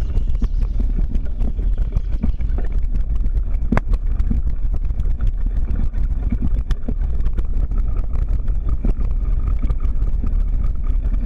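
Steady low rumble of wind buffeting a mounted camera's microphone while riding over rough dirt ground, with scattered knocks and rattles from the bumps.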